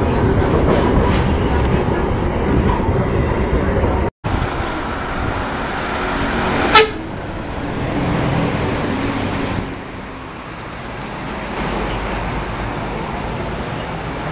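Intercity buses passing on a road with steady engine and traffic rumble, and a short, very loud horn toot about seven seconds in. The sound cuts out for an instant about four seconds in, and the traffic is quieter over the last few seconds.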